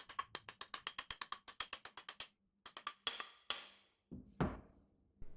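Hammer striking a wooden lathe-tool handle to seat the tool bit: a fast, even run of light wooden knocks, about nine a second, for a little over two seconds, then a few scattered knocks.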